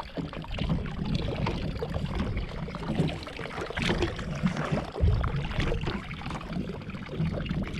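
Sea water sloshing and slapping against a small fishing boat's hull, with a low rumble and a few knocks on board.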